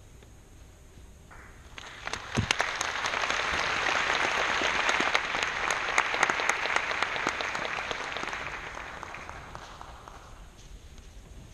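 Audience applauding: the clapping starts about two seconds in, swells, then dies away near the end.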